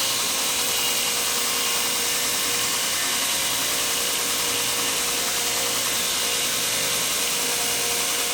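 A power tool running steadily under load, a continuous even hiss with a few steady tones and no change in speed.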